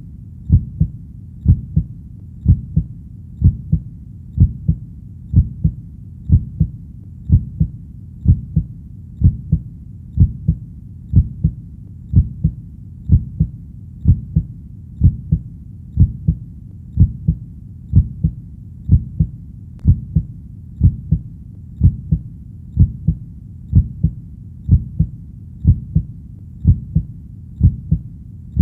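Heartbeat sound: a steady lub-dub, two low thumps close together, repeating evenly about once a second.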